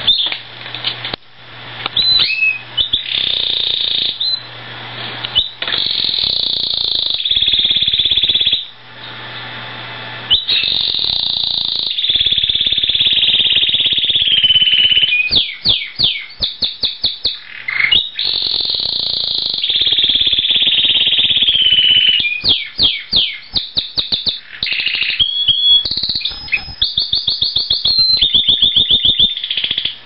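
Canary singing a long, loud song: held whistled notes alternating with fast rolling trills of rapidly repeated notes, broken by short pauses.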